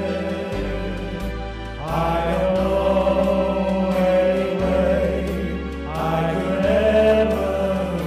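Instrumental break of a song's backing track: sustained chords over a bass line that changes note every second or two, swelling about two seconds in and again near six seconds.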